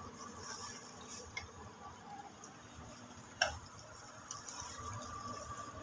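A few faint sharp taps over quiet room noise, the loudest about three and a half seconds in: a spatula knocking against the pan of curry masala as it is scooped.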